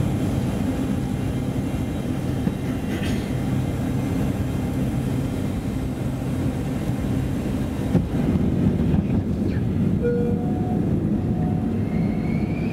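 Steady cabin noise inside a Boeing 747 on approach: a low, even rumble of engines and rushing air. About ten seconds in, a faint steady tone joins it.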